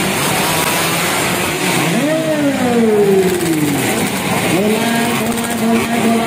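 Two-stroke underbone motorcycle engine revving: the pitch jumps up about two seconds in and falls away over a second and a half, then rises again and holds steady near the end.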